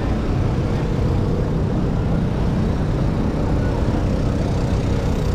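Steady city street noise dominated by traffic: vehicle engines running with a constant low hum and no distinct events.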